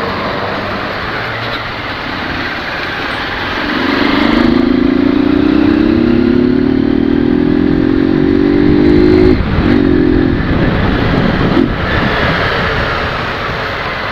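Honda CG 150 Sport single-cylinder four-stroke engine, running without its air filter, pulling the bike along. About four seconds in, its note starts rising steadily for some five seconds, drops sharply, climbs briefly again and then breaks up.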